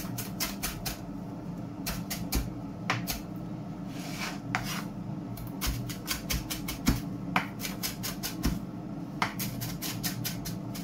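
Kitchen knife chopping flat-leaf parsley on a wooden chopping board: quick runs of sharp taps on the board, about four or five a second, broken by short pauses. A steady low hum runs underneath.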